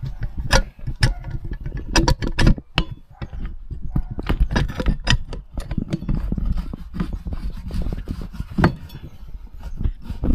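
Irregular clicks, knocks and light metallic clatter of hands and tools working at a Trabant 601's drum brake assembly while a sticking wheel cylinder is worked free.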